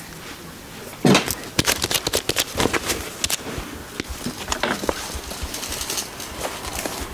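A fabric clasp purse with a brass kiss-lock frame being handled: cloth rustling and a string of sharp clicks and knocks, the loudest about a second in.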